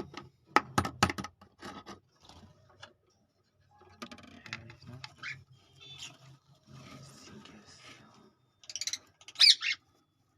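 Handling noises of a lovebird nest box: a quick run of sharp wooden clicks and knocks about a second in, then scraping and rustling. Near the end comes a short, loud, high-pitched chirp from a lovebird.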